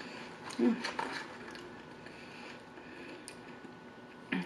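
Close-miked eating: mouth clicks and soft chewing of steak fries, with a short hummed "mm" of enjoyment about half a second in and a brief mouth sound near the end.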